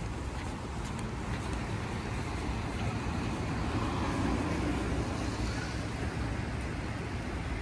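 Traffic on a wet city street: a steady rumble and tyre hiss, with a vehicle passing that swells a little around the middle.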